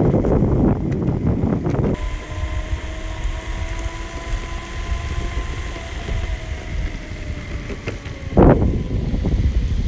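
Direct drive electric skateboard hub motors whining under power, a steady pitch that rises slightly and then sinks and fades out about six to eight seconds in. Beneath it are wheel rumble and wind on the microphone, with louder gusts at the start and about eight and a half seconds in.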